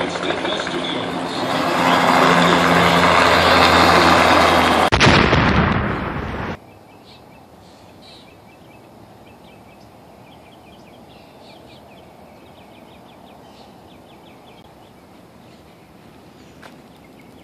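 A loud motor running close by with a steady low hum, which cuts off suddenly about six and a half seconds in. A quiet outdoor background with faint, repeated bird chirps follows.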